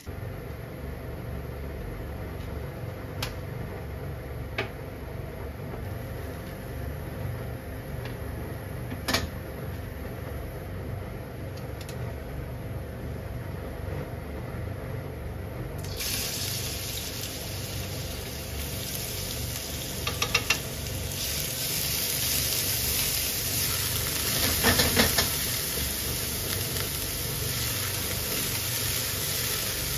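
Water running from a kitchen tap, starting about halfway through as a steady hiss, over a low steady hum, with a few light knocks of things being handled.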